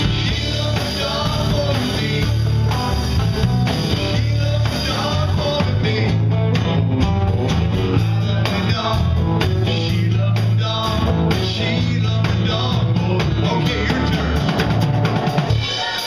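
Live band music: electric bass line, drum kit and guitars playing a blues-rock song, the bass stopping just before the end.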